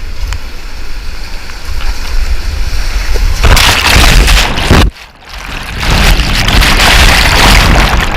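Whitewater rapids rushing around a kayak, picked up by a GoPro's microphone as a dense, loud noise with a low rumble of water and wind on the mic. It swells about three and a half seconds in, cuts out for a moment near the five-second mark, then surges loud again.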